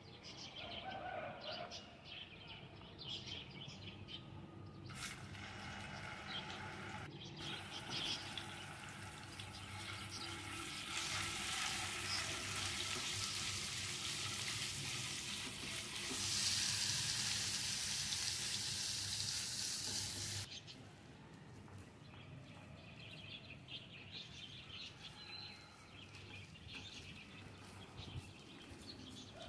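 Chicken mince sizzling as it fries in hot oil in a nonstick pan. The hiss starts about five seconds in, is loudest around the middle, and cuts off abruptly about two-thirds of the way through. Birds chirp in the background.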